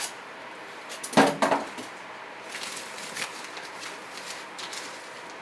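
Handling noise from unpacking a computer case and its accessories: a short knock about a second in, then scattered faint clicks and rustling.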